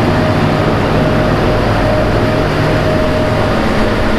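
ZDM3 narrow-gauge diesel locomotive passing close by as it pulls its train out of the station. Its engine runs with a steady low drone and a steady whining tone over it.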